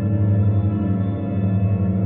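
A low, steady ambient drone with many layered overtones, held without a break, in the manner of a film soundtrack.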